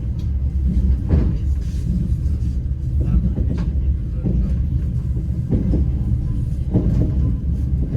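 Passenger train carriage running along the track, heard from inside: a steady low rumble with a few irregularly spaced sharper knocks from the wheels and car body.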